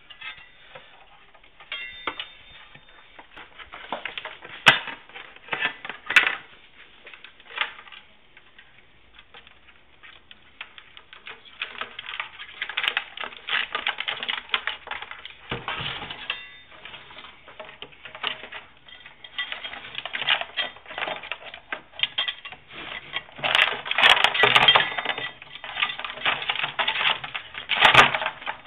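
A land crab's legs and claws clicking and scratching on the floor and sides of a plastic crate as it scrambles about, in irregular bursts that are thickest about halfway through and near the end, with a few sharper knocks.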